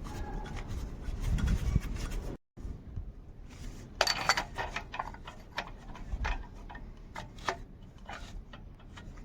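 Scattered clicks, taps and scraping of tools and parts being handled during clutch work, with a sharper cluster of clicks about four seconds in. The sound cuts out for a moment about two and a half seconds in.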